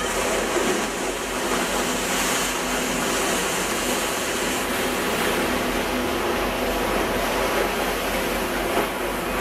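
Steady rush of water along the hull of a moving catamaran, with the even hum of its engine underneath.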